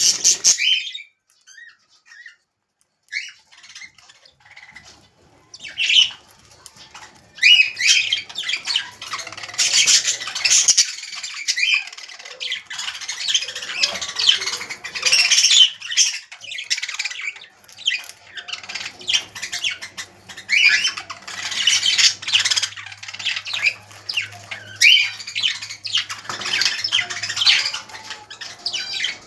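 Small pet parrots calling: a few sparse chirps at first, then near-continuous high-pitched chirping and squawking from about seven seconds in, with a short lull midway.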